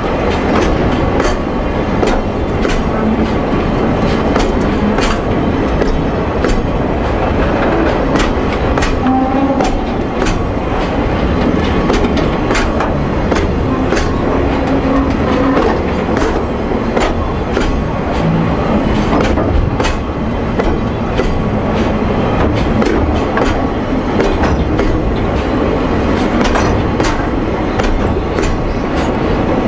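Limestone hopper wagons of a freight train rolling past close by: a steady rumble with frequent sharp clicks as the wheels cross rail joints.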